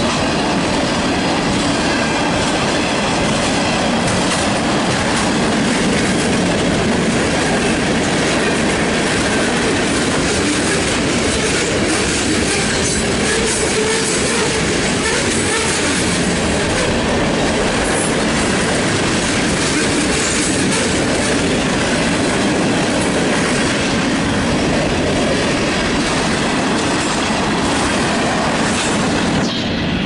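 Freight train's tank cars and covered hopper cars rolling past steadily, wheels clattering over the rails.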